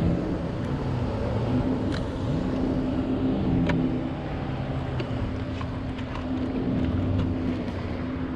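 Engine of a passing powerboat droning, its pitch shifting up and down, then holding steady, over steady wind and water wash. A few sharp light knocks stand out at intervals.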